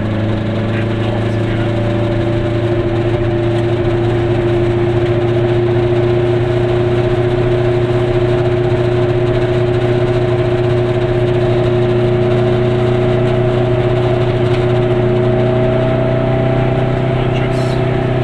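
Goggomobil's small two-stroke twin engine running under way, heard from inside the car over tyre and road noise. The engine note rises slowly as the car gathers speed.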